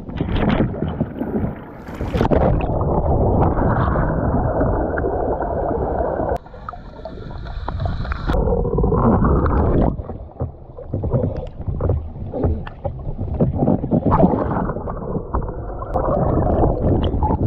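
A Hobie Pro Angler 14 fishing kayak capsizing: a sudden loud splash, then continuous churning, sloshing water and knocks as the angler thrashes and the boat turns over. Much of it is dull and muffled, as heard with the microphone under water, with a brief hiss near the middle.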